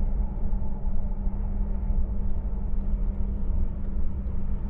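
Running noise of a DB IC2 Twindexx double-deck Intercity train heard inside the coach: a steady low rumble with a constant hum.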